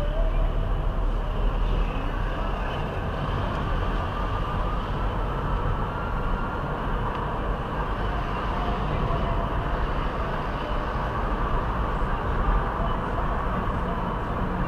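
Steady road and engine noise inside a moving car's cabin: a low, even rumble with tyre hiss.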